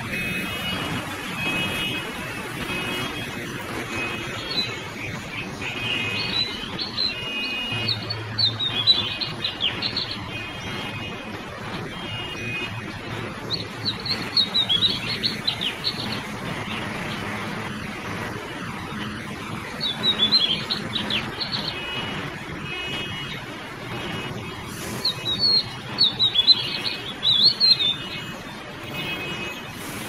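Oriental magpie-robin singing in bursts of quick, varied high notes a few seconds apart, with short chirps repeating in between. A low traffic rumble runs underneath.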